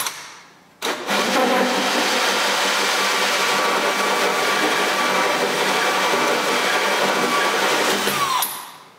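Power drill spinning a hole saw through the wooden back panel of a sink base cabinet, cutting through the waste-line hole from the finished side. It starts suddenly about a second in, runs steadily, then winds down with a falling whine near the end.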